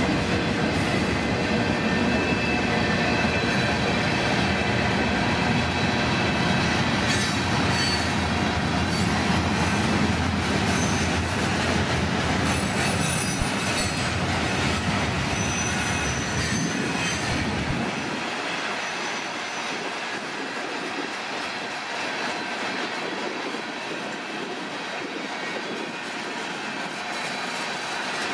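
Freight cars, mostly covered hoppers, rolling past on the rails: a steady wheel-on-rail rumble with clicks from the joints, and thin high wheel squeals now and then in the middle. The deep rumble drops away about two-thirds of the way through, leaving a lighter rolling noise.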